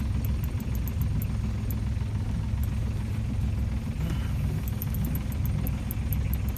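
A boat's motor running steadily at low revs.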